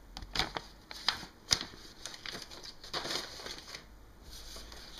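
Paper and stickers rustling and crinkling as they are drawn out of a paper envelope and handled, with scattered light taps, the sharpest about one and a half seconds in.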